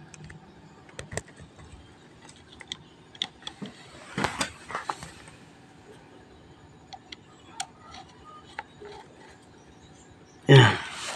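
Scattered small clicks and taps of hands handling the cable connectors and terminals on the electric bicycle's lead-acid batteries, with a brief louder scraping rattle about four seconds in.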